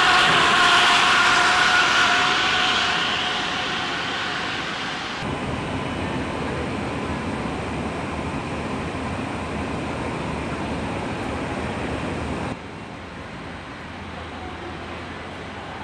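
A new Ford F-150 pickup drives slowly past close by. Its running noise swells and fades over the first few seconds. After that comes steady assembly-plant machinery noise, which drops to a quieter hum about twelve seconds in.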